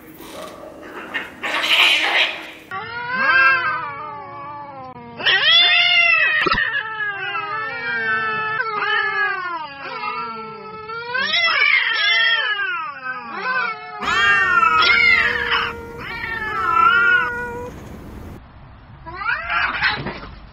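Cats fighting: long, wavering caterwauling yowls that rise and fall in pitch, one after another, with harsh hissing bursts near the start and again near the end.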